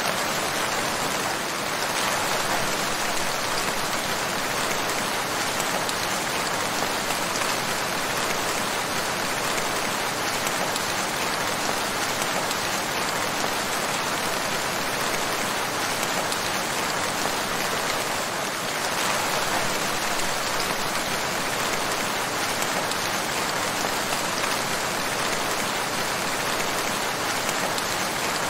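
Steady rain falling on surfaces, an even, unbroken hiss.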